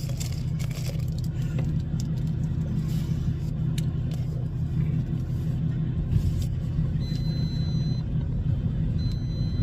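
Steady low rumble of a semi truck's diesel engine running. Near the end come two high, steady beeps about a second long each.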